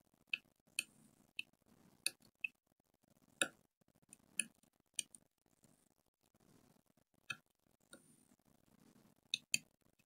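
Irregular small clicks and taps, about a dozen, from hand tools working on a phone motherboard while its USB-C pads are cleaned for soldering; two quick clicks come close together near the end.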